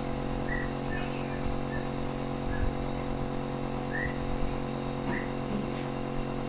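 Compressor nebulizer running: a steady motor hum made of several even tones as it pumps air through the medicine cup to make the mist. Brief high chirps sound now and then over it.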